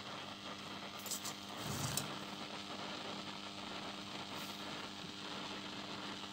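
Steady hiss and static from the 1973 Zenith D-587's amplifier on phono, with a low mains hum underneath and a few crackles between one and two seconds in. The noise comes from a faulty small transistor that still tests okay but is noisy.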